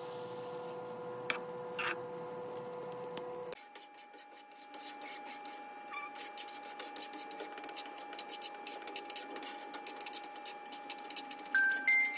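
Butter and whisked eggs sizzling and crackling in a frying pan on a gas stove. The crackling is thick with fine pops after a few seconds, over a steady faint hum.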